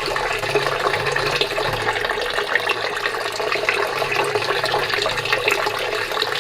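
Water running out steadily from the opened drain outlet of an old plastic water tank as its level is let down.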